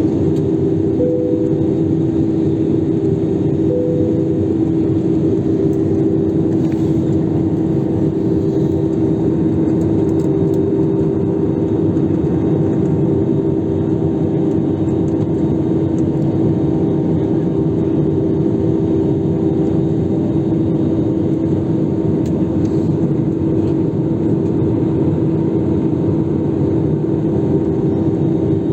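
Steady cabin noise of a jet airliner in flight: an unchanging drone of engine and air noise with a steady hum.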